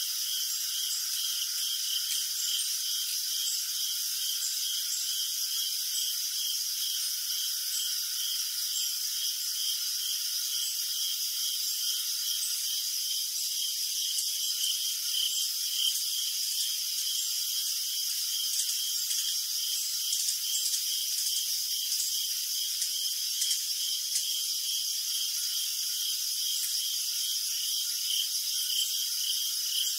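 Chorus of frogs calling: a dense, steady, high-pitched calling with a fast, regular pulse, over a fainter, lower trill.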